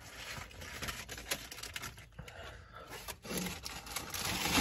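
Close-up eating sounds from a fast-food cheeseburger: crackly handling noise with many small clicks, then a louder bite near the end.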